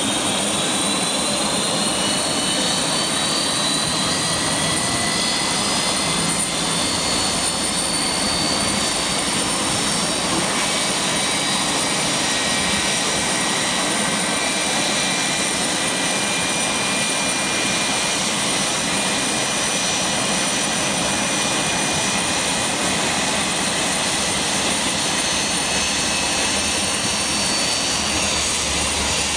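Airbus A321's turbofan engine whining as it spools up to idle at start-up. The whine rises in pitch over the first several seconds, then holds steady over a constant rushing roar.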